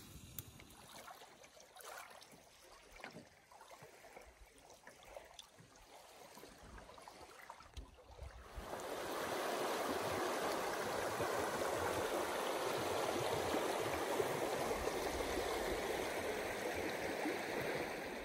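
A river running over rocky rapids: a steady rushing of water that comes in about halfway through, after a quiet first half with a few faint clicks and taps.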